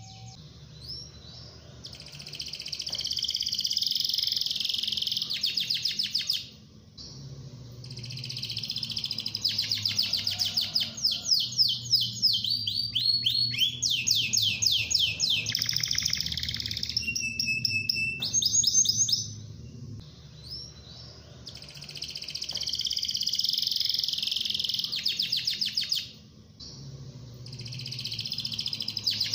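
Domestic canary singing long phrases of fast trills and rapidly repeated notes, with a few short breaks between phrases.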